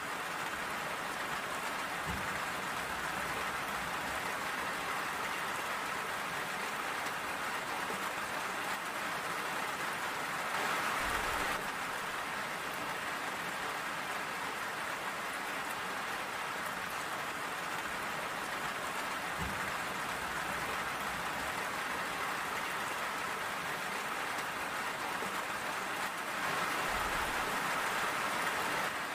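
Steady rain falling, an even hiss of drops on surfaces that swells louder briefly about a third of the way in and again near the end, with a couple of soft low thumps.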